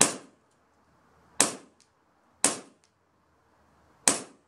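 Novritsch SSP1 CO2 airsoft pistol firing four single shots, roughly one to one and a half seconds apart, each a sharp pop with a brief tail.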